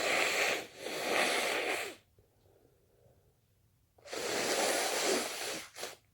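A person's breath rushing loudly and airily, three long rushes of about a second each, the last followed by a short puff near the end.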